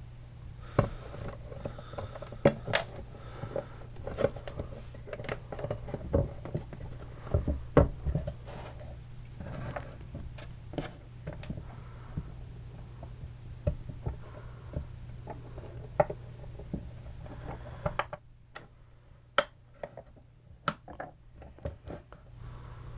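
Small airsoft gearbox parts being handled and fitted back into the gearbox shell: irregular clicks, taps and light clinks of metal and plastic pieces, over a steady low hum that stops about three-quarters of the way through.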